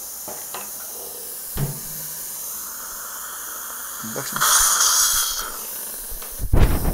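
Dental surgical suction tip hissing steadily while saline is irrigated into the extraction socket from a syringe. About four seconds in, the suction rises to a louder rushing hiss for about a second as it draws up the saline, and a short, louder burst of noise comes near the end.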